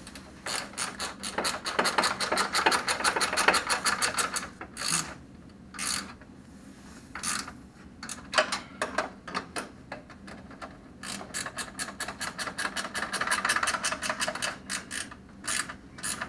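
Socket ratchet clicking in fast runs as a 10 mm bolt is driven into a running-board bracket, pausing for a couple of seconds midway and then resuming.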